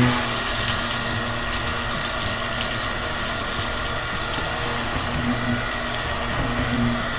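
Handheld stick blender running steadily while submerged in cold-process soap batter, its motor giving a steady hum with a faint high whine, blending the batter toward trace.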